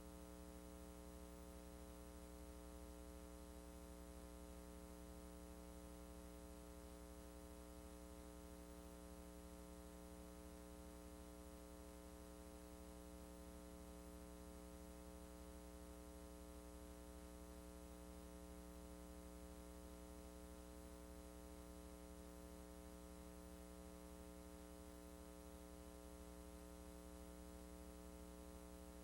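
Near silence: faint, steady electrical mains hum with its overtones and a little hiss, the noise of a VHS transfer made with no recorded audio.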